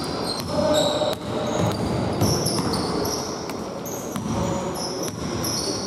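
Basketball dribbled on a hardwood gym floor, mixed with many short high-pitched squeaks of sneakers on the wood as players move.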